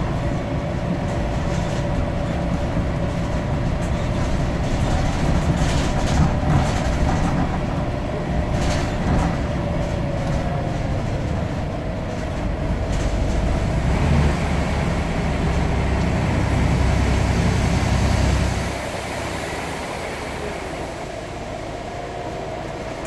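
Scania N94UD Omnidekka double-decker bus running under power: a heavy, steady low rumble with a whine riding on it and occasional rattles. The rumble drops away suddenly near the end as the power comes off.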